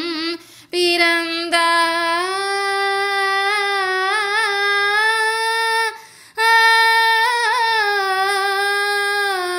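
A solo high voice sings a Tamil devotional verse, drawing out long notes with wavering ornaments. It breaks off briefly twice for breath, about half a second in and about six seconds in.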